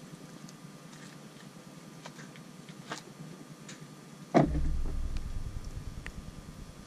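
A few light clicks, then a sudden heavy thump about four seconds in, followed by a low rumble that fades over a couple of seconds.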